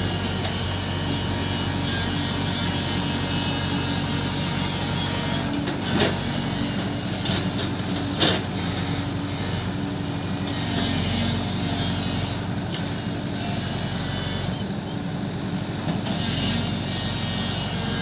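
JCB digger's diesel engine running steadily, with two sharp metallic knocks about six and eight seconds in.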